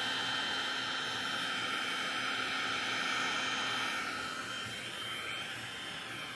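Electric heat gun running, a steady blowing hiss as it heats vinyl convertible-top material to try to shrink out wrinkles. It gets a little quieter about four seconds in.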